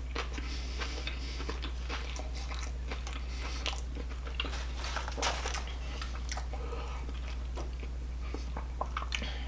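Close-up chewing and biting into a Burger King sandwich, with irregular small crunches and wet mouth clicks throughout.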